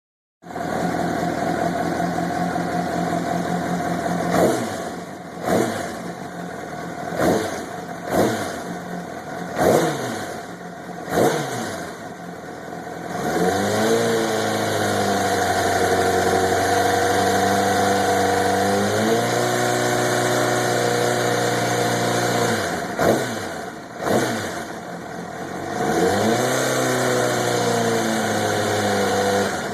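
2005 Honda CBR600RR's inline-four engine idling, then blipped sharply about six times, held at raised revs, blipped twice more and held up again near the end. The owner suspects a timing chain noise and does not know whether it is normal.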